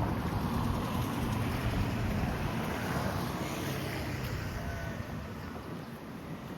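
Strong wind buffeting the microphone: a low, uneven rushing noise that eases off near the end.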